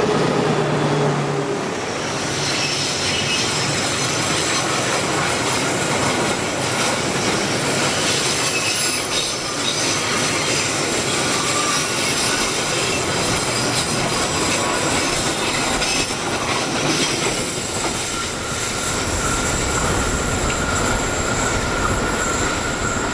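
Diesel-electric locomotive passing close, its engine heard briefly at the start. A long train of fuel tank wagons then rolls by at speed, wheels rumbling and clattering on the rails with a high wheel squeal. Near the end a steadier squeal and a deeper rumble set in.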